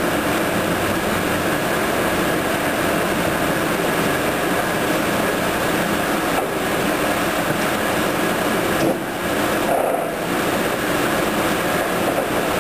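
O-M vertical turret lathe running with a steady mechanical whir, with short dips in level about nine and ten seconds in.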